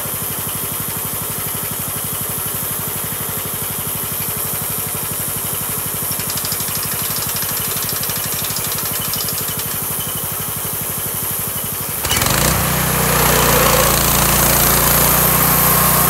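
Small engine on a homemade sawmill running steadily at a low speed, then about twelve seconds in it suddenly gets louder and stays up, as if throttled up or put under load.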